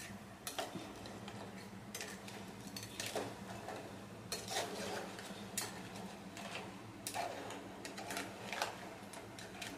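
A spoon stirring crab curry in a stainless steel pot, with irregular clinks and scrapes against the pot's side, over a faint steady low hum.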